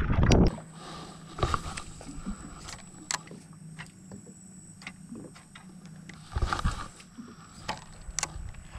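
Hand rubbing over the camera and its microphone, then a faint steady hum with scattered sharp clicks and knocks of fishing gear handling on a small boat.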